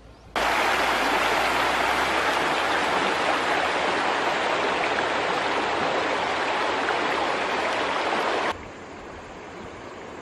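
Flowing river water: a steady rushing hiss that starts abruptly about half a second in and cuts off abruptly after about eight seconds.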